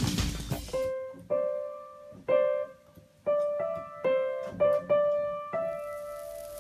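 Upright piano keys pressed by a cat's paws: about nine single notes, one at a time at uneven intervals, each ringing and fading. The notes sit close together in the middle of the keyboard. A dense, loud sound cuts off within the first second, before the notes begin.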